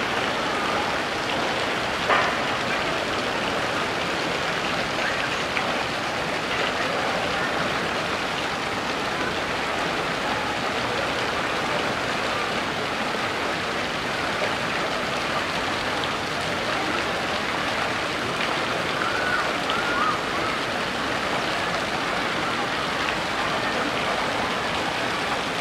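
Steady rush of running water from the pool's water feature, with one sharp knock about two seconds in and a couple of faint chirps a little past the middle.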